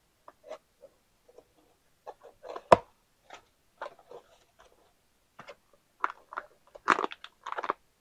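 A cardboard box being opened by hand and a filament spool in a crinkly plastic vacuum bag being drawn out: scattered scraping, rustling and crinkling, with a single sharp snap about three seconds in and a denser burst of crinkling near the end.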